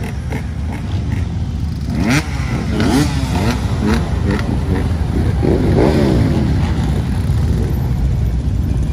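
Several motorcycle engines running as a column of bikes rides off, over a steady rumble of idling engines. Engine notes rise and fall as bikes rev and pass, about two seconds in and again around six seconds.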